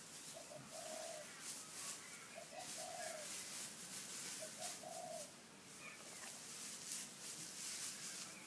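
A dove cooing three times, about two seconds apart, each call a quick stutter followed by a longer note. Over it, the crackly rustle of dry straw being gathered and tossed.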